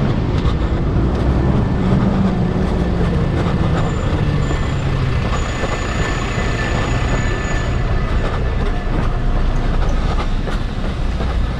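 Double-decker bus driving past at close range, its engine giving a steady low rumble.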